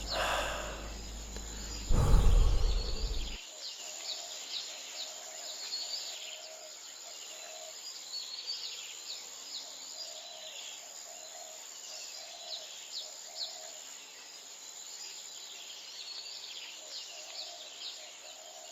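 Birds chirping, with many quick falling chirps and a lower call repeating in short groups. In the first three seconds a low rumble covers them, loudest about two seconds in, then stops.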